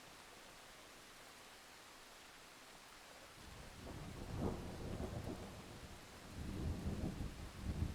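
Thunderstorm: a faint, steady hiss of rain, then low rolling thunder comes in a few seconds in and swells twice, louder the second time.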